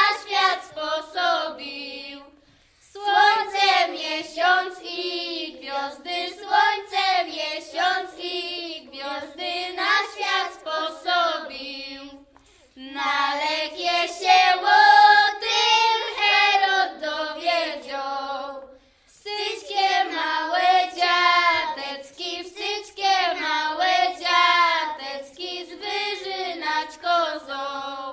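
A group of young children singing a Polish Christmas pastoral carol (pastorałka), phrase by phrase, with short breaks between the verses.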